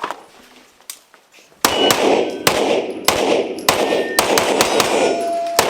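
A string of gunshots fired in quick succession, one every half second to a second, during a timed shooting drill, each echoing in the range. Several shots are followed by the ringing of struck steel targets.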